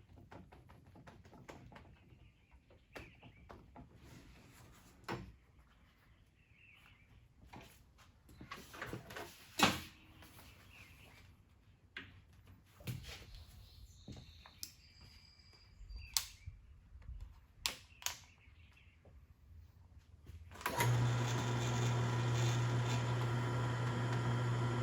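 Scattered clicks and knocks of metal parts and tools being handled, then about 21 s in an electric drill motor starts and runs at a steady pitch, getting ready to drill a hole in a baler part.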